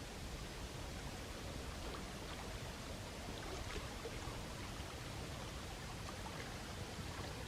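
Small sea waves washing on the shore, a steady wash of water with faint trickling and fizzing crackles in the middle.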